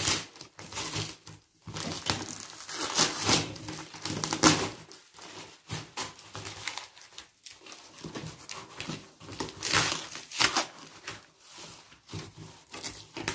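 Plastic wrapping crinkling and rustling in irregular bursts as it is pulled and crumpled off a cardboard parcel. Near the end, cardboard flaps are torn open.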